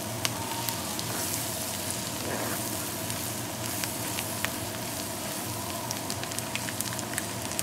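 Corn frying in butter in a cast-iron skillet, sizzling steadily with scattered small pops as it is stirred; the flour stirred into it is cooking off.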